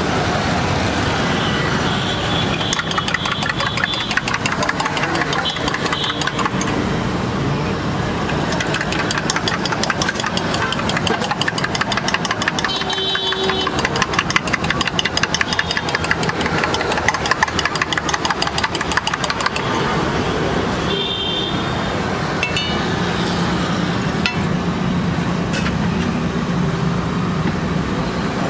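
An engine running steadily with a fast, even pulse, among street noise, with a few short high-pitched tones here and there.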